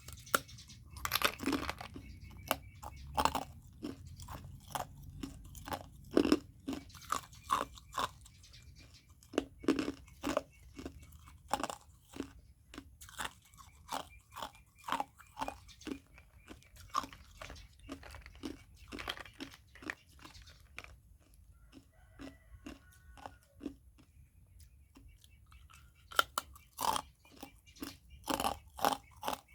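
A person crunching and chewing ice, with a run of sharp, irregular crunches a few each second. The crunching eases for a few seconds past the middle, then picks up again near the end.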